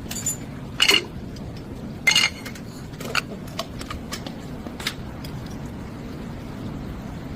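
Metal hand tools and parts clinking against each other. There are two sharp clinks about one and two seconds in, then a few lighter ones.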